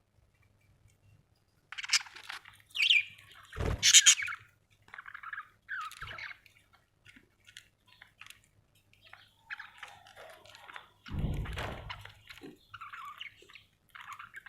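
Budgerigars chirping and chattering in short, high, repeated calls, starting about two seconds in and loudest early on, with a couple of low thuds among them.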